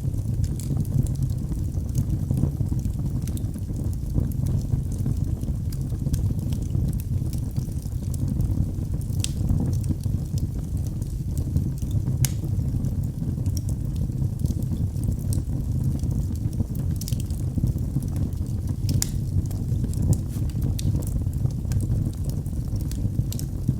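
Fireplace fire burning with a steady low rumble of flame, with scattered sharp crackles and pops from the burning fuel.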